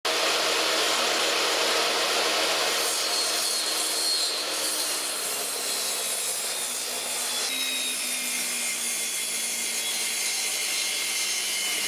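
Table saw cutting through a sheet of plywood, the blade sawing steadily through the wood with the motor running.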